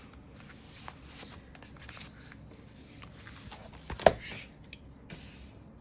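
Soft rustling and sliding of album photo cards and paper packaging being handled, with one sharp tap about four seconds in.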